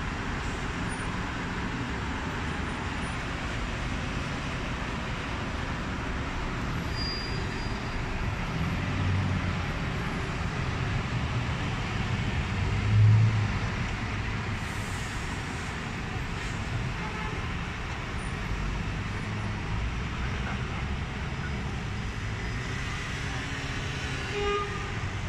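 Steady city street traffic noise from cars and a bus in slow-moving traffic, with a louder low engine rumble about halfway through.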